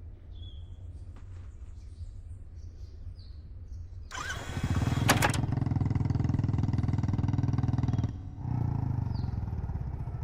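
Faint bird chirps for the first few seconds, then an engine starts suddenly about four seconds in and runs steadily; it dips briefly near eight seconds and keeps running a little quieter.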